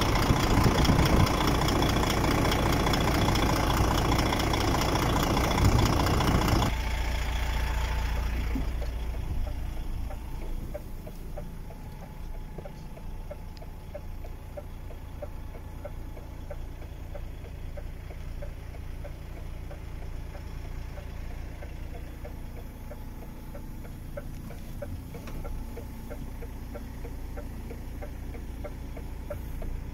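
DAF XF 105.410's PACCAR MX six-cylinder diesel idling, loud at first with the oil filler cap off. About seven seconds in it drops and becomes quieter and muffled, as heard from inside the cab.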